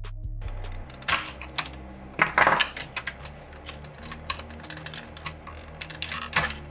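Irregular clicking, tapping and scraping of hard plastic as a DVD player's disc carriage is worked loose and lifted out, with a screwdriver knocking against the plastic frame. There are louder clatters about a second in, around two and a half seconds in, and near the end.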